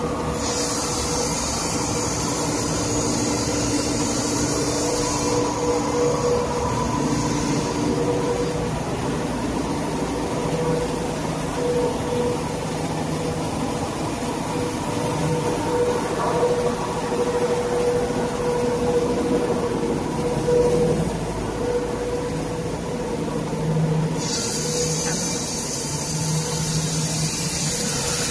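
Automatic marble tile polishing line running: a steady machine drone of motors and polishing heads working on stone, with a constant hum. A high hiss sits over it for the first several seconds and comes back near the end.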